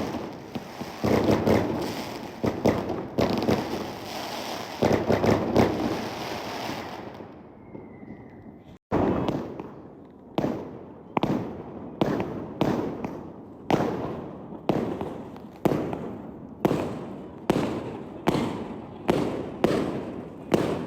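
Fireworks going off: dense, overlapping crackling bursts for the first several seconds, fading out. After a brief gap comes a steady run of separate bangs, about one or two a second, each one dying away.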